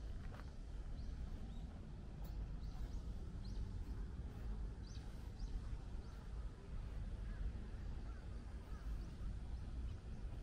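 Small birds chirping in short high calls scattered through, over a low steady rumble.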